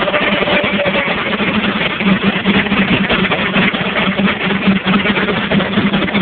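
Case steam traction engine driving a large sawmill: steady, loud mechanical running with a low hum that grows stronger about two seconds in.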